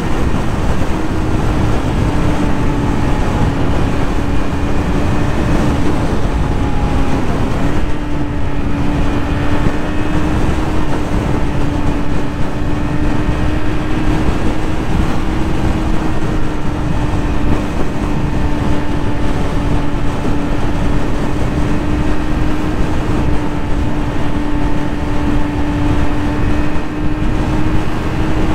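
Yamaha YZF-R6 600cc inline-four engine running at a steady, high-revving note while riding, with wind rush on the microphone. The engine note dips briefly and picks back up about eight seconds in.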